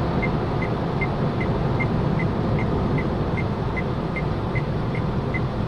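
Car interior driving noise: steady road and engine rumble while cruising, with a light, even ticking about two and a half times a second.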